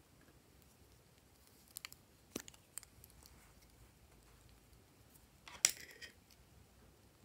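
Lipstick tube being handled and opened: a few light clicks, then a louder cluster of clicks and rattles about five and a half seconds in.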